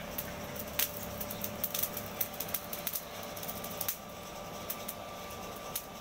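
Charcoal forge fire crackling with scattered sharp ticks at irregular times, over a faint steady whine from the hand-cranked forge blower.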